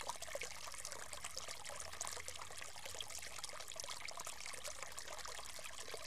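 Small vivarium waterfall: water trickling and splashing steadily down a rock face built from foam and grout.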